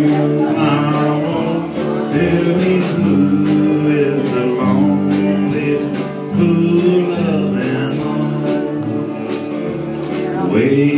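Live country band playing a song, with electric guitar over a steady beat of about two beats a second.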